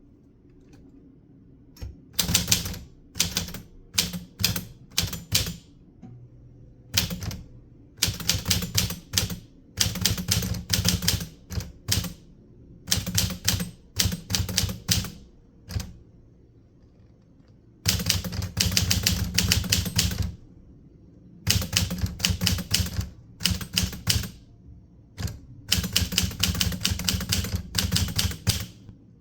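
Typewriter keys striking paper in quick runs of keystrokes, broken by short pauses, with a longer pause about two-thirds of the way through.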